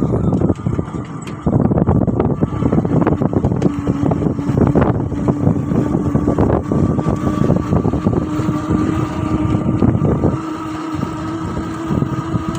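An engine running steadily, with a constant hum and a busy, noisy clatter.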